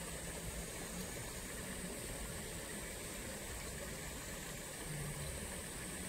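Flowing water: a steady, even noise with a constant high hiss above it.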